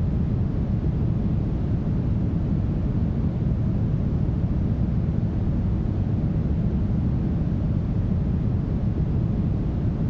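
Steady, smoothed brown noise: an even, deep rush with most of its weight in the low end and only a faint hiss above, unchanging throughout.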